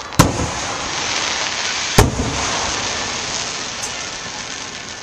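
Fireworks aerial shells bursting: two sharp booms a little under two seconds apart, followed by a steady hiss that slowly fades.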